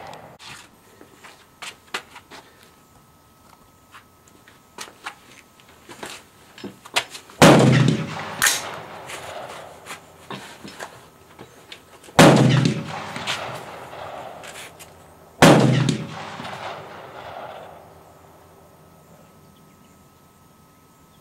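AR-15 with a DSArms ZM4 5.56 upper firing handloads: three single shots a few seconds apart, each followed by an echo trailing off over a second or two, with a few small clicks between them.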